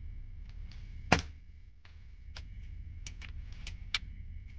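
Gamo Swarm Whisper 10X break-barrel air rifle firing one shot, a single sharp report about a second in. It is followed by a quick run of light clicks from the rifle's action as the barrel is broken open to cock it for the next shot.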